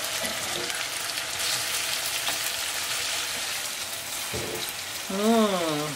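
Tuna steaks sizzling in oil and lemon-herb sauce in a non-stick frying pan, a steady frying hiss. About five seconds in, a person's voice briefly hums over it.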